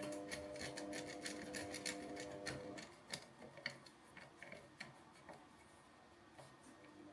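Small irregular clicks and rubbing from hands handling plastic cable connectors and a terminal sleeve on a generator's battery leads, several clicks a second. A steady low hum underneath stops about three seconds in.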